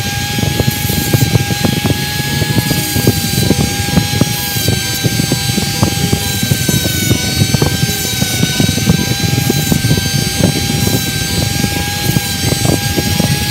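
Steady motor drone with a held two-note whine and a low rumbling rush, with light clicks of small metal parts being handled over it.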